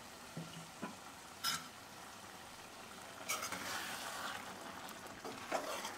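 A spoon stirring and scraping through watery black chickpea curry in a steel pan, starting about three seconds in after a few faint clicks.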